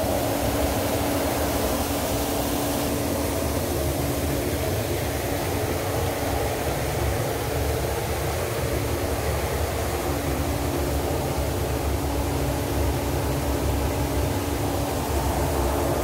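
Grain dryer and auger machinery running: a continuous, even machine hum with a low rumble and a steady drone.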